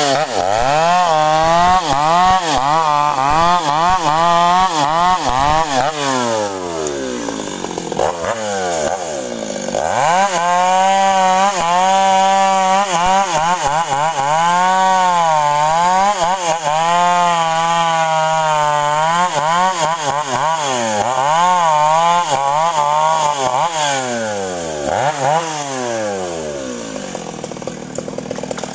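Stihl two-stroke chainsaw cutting sengon logs, its engine pitch wavering up and down as the chain bogs under load and recovers. The revs fall away twice, about a quarter of the way in and near the end.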